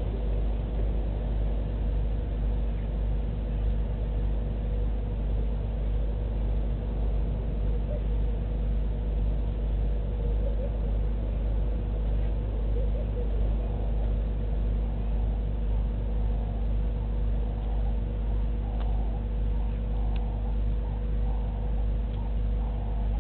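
Steady low rumble with a constant hum underneath, unchanging throughout.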